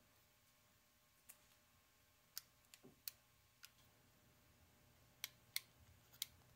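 Hand crimping tool for insulated terminals clicking as it crimps a red insulated ring terminal: about eight short, sharp clicks at uneven intervals, some in quick pairs.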